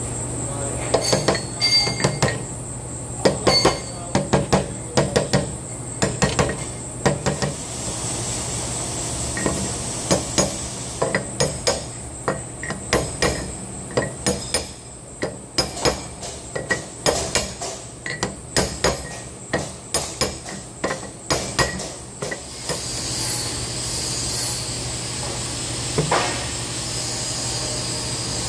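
Hammer blows on a drift, tapping a quarter-inch-thick steel sprocket down onto its tight-fitting steel hub: many sharp metallic taps in quick clusters that stop a few seconds before the end, followed by one lone knock. A steady shop hum runs underneath.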